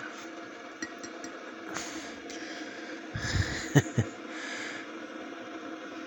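A glass mug being shifted on a Keurig coffee maker's drip tray. About three seconds in there is a short rumble and two sharp clinks as it is set straight under the spout, over a faint steady hum.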